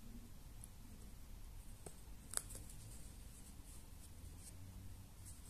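Faint rustle of a crochet hook and cotton cord as single crochet stitches are worked into the edge of a felt slipper sole, with a few small clicks, the sharpest a little over two seconds in.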